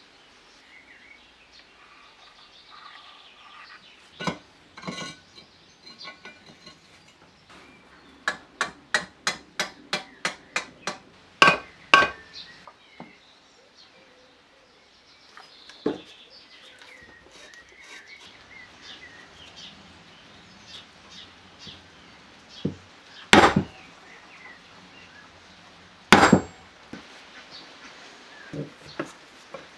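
Light metal clicks and knocks from oiling and fitting a small engine's cam followers and camshaft into its cast-iron crankcase. About a third of the way in there is a quick run of about ten light ticks. A few sharp knocks follow, the loudest two in the second half.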